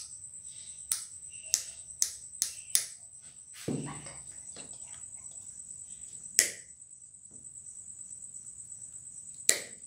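Steel combination pliers clicking five times in quick succession as they are worked in the hand, a dull knock as they are set down, then two sharp snips as they cut through plastic-insulated wire. A steady high-pitched insect-like tone runs underneath.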